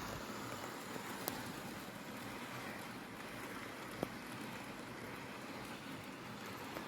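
OO gauge model train running on the layout's track: a steady rolling noise, with two sharp clicks, one a little over a second in and one about four seconds in.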